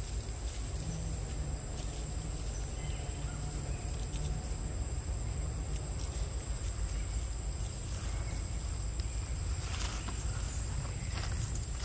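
Forest ambience: a steady, high insect drone over a low rumble of wind on the microphone, with a few short crackles near the end.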